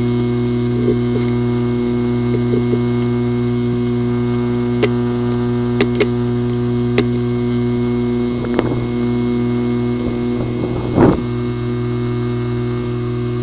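Hard drive with a physically damaged disk assembly: a steady buzzing hum with sharp clicks scattered through it, several close together around the middle, and a louder clunk near the end. These are the clicking and buzz symptoms of a failing drive with internal mechanical damage.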